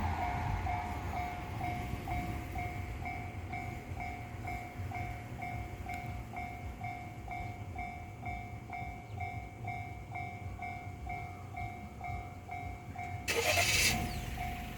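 Japanese level crossing warning bell ringing a steady repeated electronic ding, about two to three strikes a second, over a low rumble. A brief loud burst of noise cuts across it near the end.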